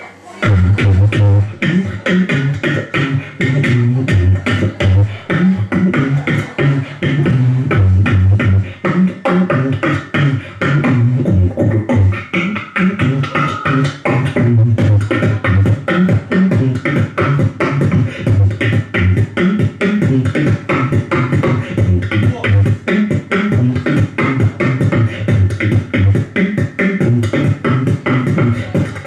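Human beatboxing into a handheld microphone, amplified through the venue's PA: a continuous, fast rhythm of vocal drum sounds over deep pulsing bass tones.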